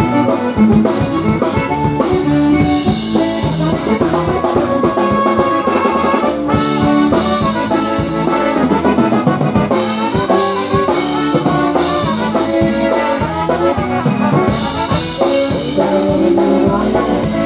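Live polka band playing an instrumental passage, concertina and drum kit over a steady dance beat.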